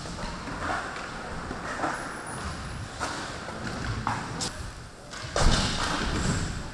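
Riding wheels rolling and scraping, broken by several hard thuds and slams of landings and impacts, the loudest about five and a half seconds in.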